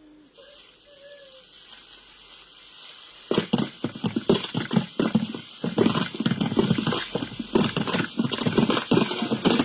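Film fight-scene sound effects built from layered foley tracks: a faint hiss, then from about three seconds in a loud, dense, irregular run of hits and impacts over a steady high hiss.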